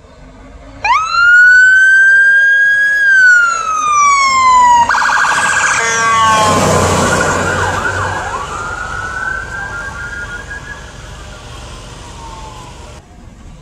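Emergency vehicle siren. It starts about a second in with a wail that rises, holds and then falls, switches to a fast yelp around five seconds in, and is joined by the rush of a vehicle passing close by. It then goes back to a wail that fades off.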